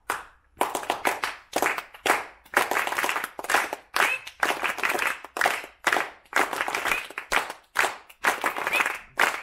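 Hands clapping in quick, uneven bursts, several people applauding together.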